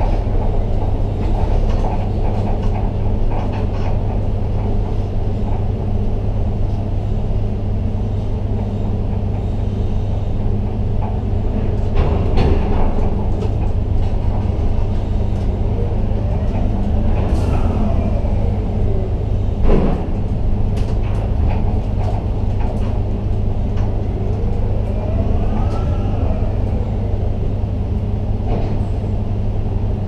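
Steady hum of a ship-to-shore container crane's machinery heard inside the operator's cab, with a whine that rises and falls in pitch twice as the drive speeds up and slows down while lowering the load. A single sharp knock comes about twenty seconds in.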